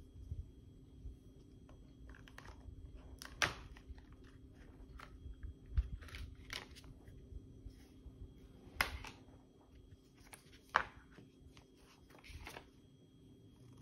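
Cardboard packaging and paper inserts being handled: a leather phone case slid out of its cardboard tray, with scattered taps and a few sharp clicks, then paper rustling near the end.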